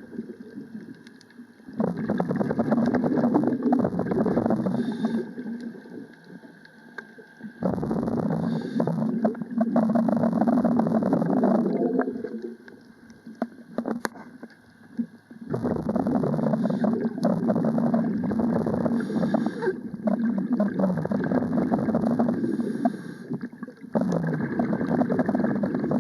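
Scuba diver's breathing underwater: long gurgling bursts of exhaled bubbles from the regulator every seven or eight seconds, with quieter inhale gaps in between.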